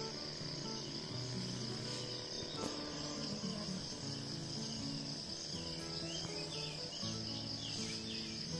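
A steady, high-pitched chorus of insects chirring without a break. Behind it plays soft background music of held notes that change about once a second.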